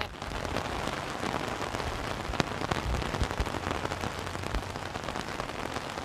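Steady heavy rain falling on trees and a wet road: a dense, even patter of drops, with a few soft low thumps about halfway through.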